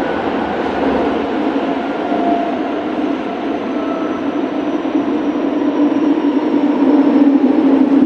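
Kobe City Subway 1000 series train with Hitachi GTO-VVVF traction equipment running: a steady rumble of wheels and traction motors with faint whining tones, growing louder over the last few seconds.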